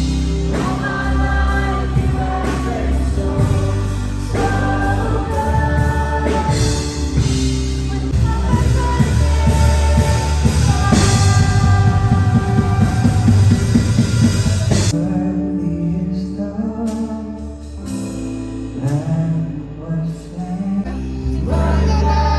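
Music with singing. A full, dense arrangement gives way abruptly about two-thirds of the way through to a sparser accompaniment.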